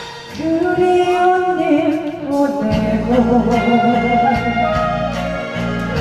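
A woman singing a slow Korean song over backing music, holding long notes. The bass and beat come back in about three seconds in.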